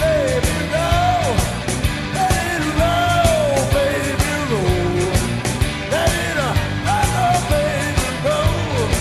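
Background rock song: a singing voice carrying a gliding melody over a steady drum beat.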